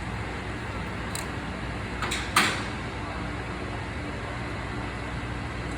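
Handling noise as a crimp lug is worked onto tape-wrapped stranded wire: a faint tick, then a short scrape ending in a sharp click about two seconds in, over a steady background hum.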